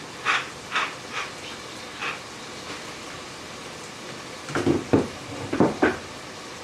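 Wooden pepper mill grinding in a few short twists over chicken sizzling in a pot, followed by a few louder knocks about four and a half seconds in.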